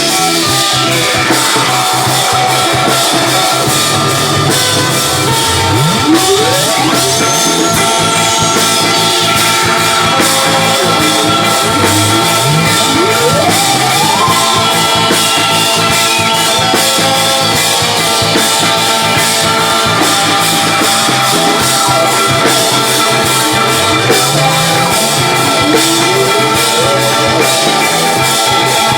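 A band playing live, with dense sustained guitar tones over driving drums. A slow rising glide in pitch sweeps up through the mix three times.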